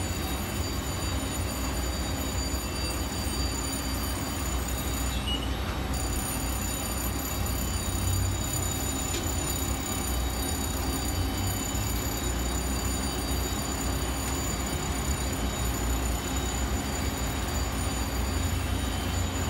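Steady low rumble with a constant machine hum: the noise of a jet bridge docked at a parked airliner's door.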